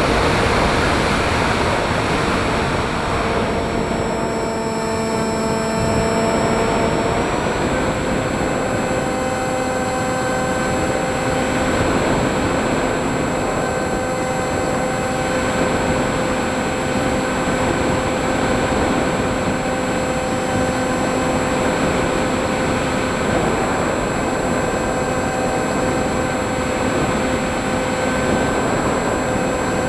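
Electric motor and propellers of an FPV model aircraft running steadily, a droning whine that steps up slightly in pitch about seven seconds in, over rushing wind noise.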